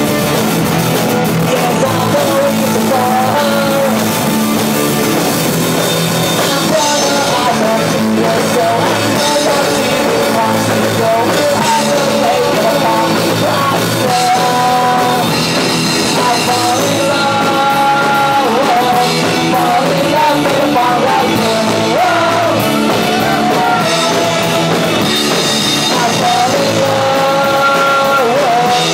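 Live punk rock band playing: electric guitars and drum kit with a sung vocal line over them.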